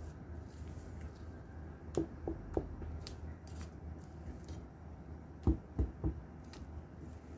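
Spatula folding chocolate cake batter in a stainless steel bowl, with two sets of three quick knocks against the bowl, about two seconds in and again about five and a half seconds in, the second set louder, over a steady low hum.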